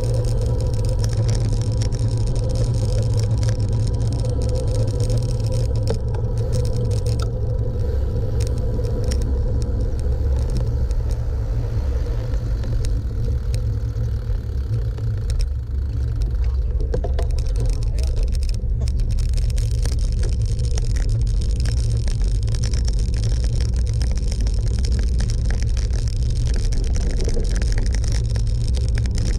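A vehicle on the move: a steady rumble of road and wind noise with a faint steady hum, dipping briefly about halfway through.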